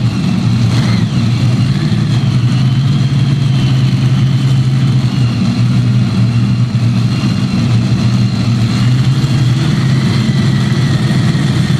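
Competition pulling tractor's engine running steadily, a deep continuous drone with no large changes in pitch.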